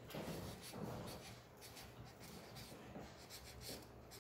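Faint scratchy rustling and small ticks of eating at the table: food and its paper wrapping being handled and chewed.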